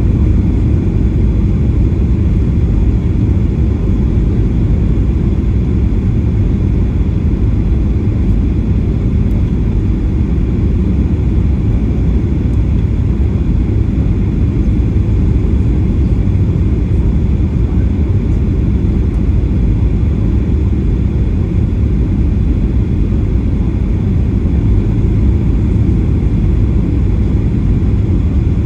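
Steady low rumble of a Boeing 737-800's engines and airflow heard from inside the passenger cabin, even throughout with no distinct events.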